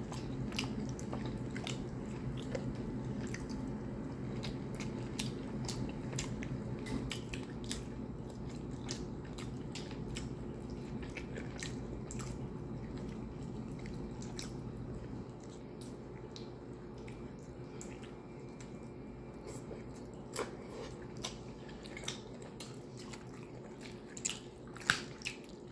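Close-up eating sounds of fufu and chicken stew eaten by hand: chewing with frequent small wet clicks and smacks over a steady low hum, with a few louder clicks near the end.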